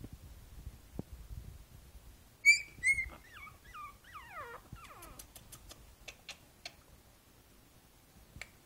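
Five-week-old Boston Terrier puppy giving two sharp, high yips about two and a half seconds in, followed by a few falling whimpers, then a few faint clicks.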